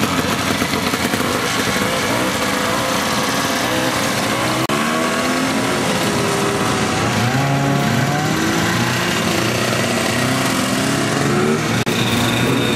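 Vintage two-stroke snowmobile engines running as old sleds pass one after another. In the middle a red 1970 Scorpion goes by, its engine note rising and falling.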